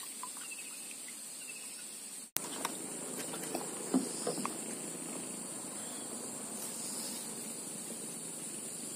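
Steady high-pitched chirring of insects. The sound cuts out abruptly about two seconds in, and a few light knocks follow.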